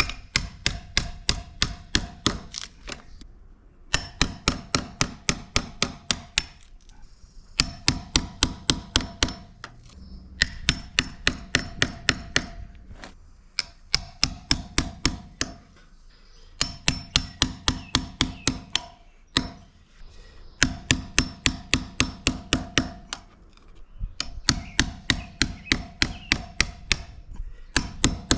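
Hand hammer blows on metal in quick runs of about four or five strikes a second, each run lasting a few seconds with short pauses between, and each strike carrying a short metallic ring. The hammering is working out the stub of a screw that sheared off in the log.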